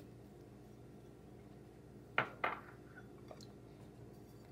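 Two quick clinks of kitchen dishware, about a quarter of a second apart, a little over two seconds in, followed by a couple of faint ticks. A faint steady hum sits underneath.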